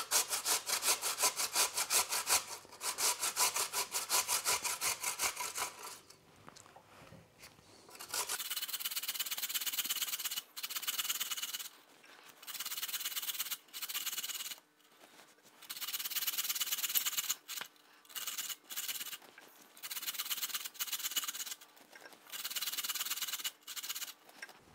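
Raw peeled potatoes being shredded on a metal box grater: quick rasping strokes. They come steadily at first, then after a pause about six seconds in they come in short runs of a second or two with brief gaps between.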